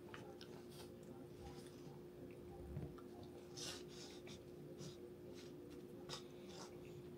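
Plastic spoon scraping and tapping in a small cup of macaroni and cheese: faint, scattered scrapes and clicks, over a low steady hum.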